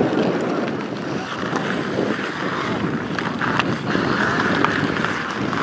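Wind buffeting the microphone over distant outdoor hockey play on ice, with a few sharp clacks of sticks on a puck.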